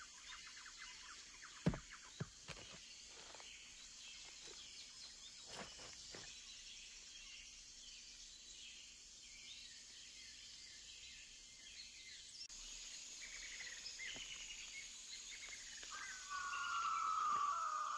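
Tropical forest ambience of insects and chirping birds, with a few sharp knocks in the first few seconds as rock and wood are handled. Near the end comes a louder, drawn-out bird cry that falls in pitch.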